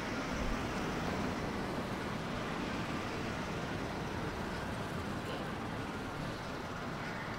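City street ambience: steady road noise from passing traffic, a little louder in the first second or two as a vehicle goes by.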